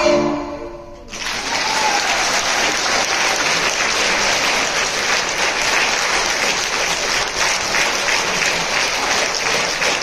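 The last sung note of a choir with a folk-instrument ensemble fades away. About a second in, the audience breaks into steady applause that fills the hall.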